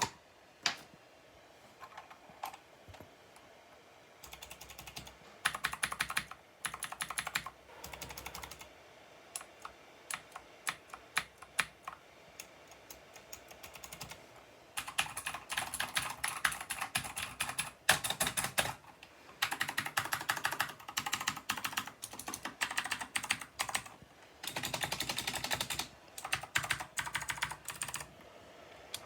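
Typing on a Cooler Master CK550 V2 mechanical keyboard with blue switches: crisp clicky keystrokes in fast runs, broken by short pauses and single key presses.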